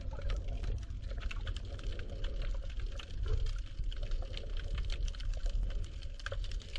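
Underwater ambience picked up by a submerged action camera: a dense crackle of small clicks over a low rumble of moving water.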